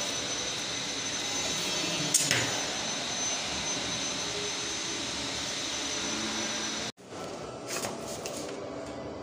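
Steady rushing hiss with a single sharp click about two seconds in. The hiss cuts off abruptly about seven seconds in, leaving a quieter hiss with a few faint clicks.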